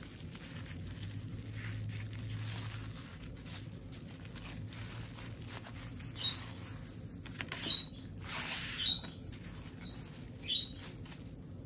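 Rustling and crinkling of mail packaging being handled, with four short, sharper crinkles in the second half.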